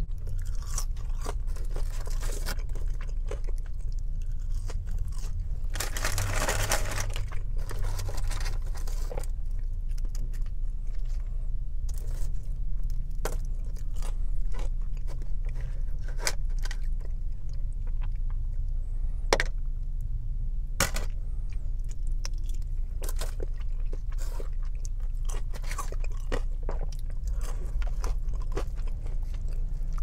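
Close-miked chewing and biting of a pulled pork sandwich and fries, with many short sharp mouth clicks throughout. A louder, scratchy sound lasts about two seconds, some six seconds in.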